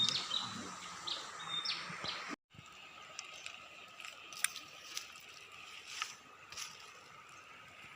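Outdoor ambience. A bird gives short, high, flat chirps for the first two seconds, then the sound breaks off abruptly. After the break there is a faint steady hiss with scattered light clicks and rustles.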